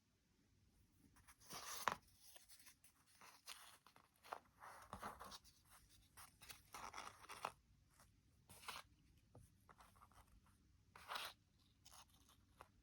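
Sheet of paper rustling and crinkling in short, irregular bursts as it is folded and creased by hand, with a sharper crackle about two seconds in.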